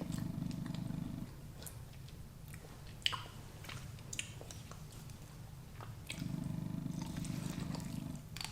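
Close-miked chewing and biting into a pork rib: scattered wet mouth clicks and small crunches. A low drone comes in twice, briefly at the start and for about two seconds near the end.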